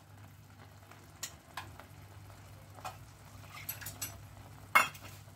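Scattered light clicks and taps of kitchen utensils over a low steady hum, with one sharper knock near the end.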